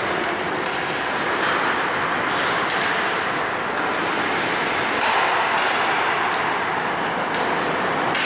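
Steady hiss of rink noise during a hockey game, with a few light clicks.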